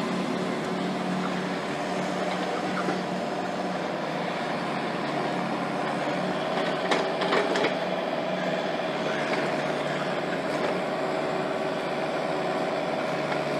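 EDI Comeng electric suburban train pulling away from the platform and running off into the distance: a steady hum with a faint tone that rises a little about halfway through, and a few light clicks.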